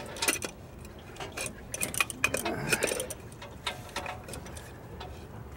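Irregular metallic clicks and clinks of hand tools and parts being handled in a truck's engine bay. They are busiest in the first three seconds and grow sparser near the end.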